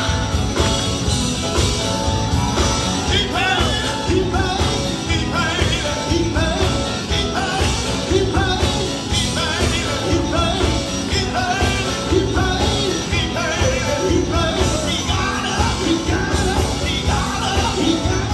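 Live gospel quartet band playing loudly: electric guitar, electric bass, drums and keyboard driving a steady up-tempo beat, with a lead voice singing over it through the PA.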